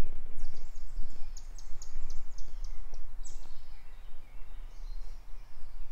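Birds chirping: a rapid run of short high chirps about a second in, then one falling high call, over a steady low rumble of outdoor background noise.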